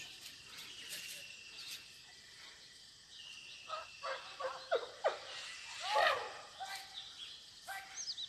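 Quiet rural outdoor ambience: a steady high trill, with several short distant calls from a little past the middle, the loudest about six seconds in.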